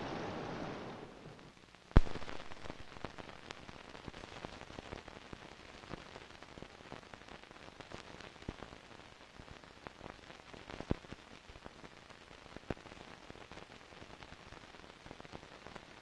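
Ocean surf on the soundtrack fading out in the first second or so, then a sharp click about two seconds in and the faint crackle and scattered pops of a worn 16mm film print's soundtrack running on with no sound recorded on it.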